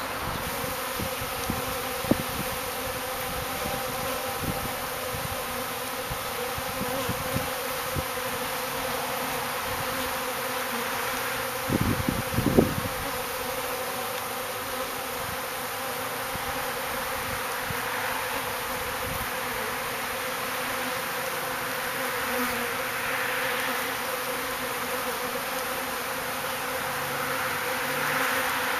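Honeybees buzzing in a steady hum around the entrance of a newly installed hive, as the freshly hived colony settles in. A brief cluster of knocks comes about twelve seconds in.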